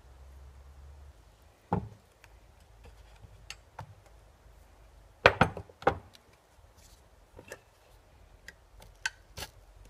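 Knocks and clicks of metal engine-mount parts being handled and set down on cardboard. One knock comes about two seconds in, two louder ones a little past halfway, and lighter clicks follow.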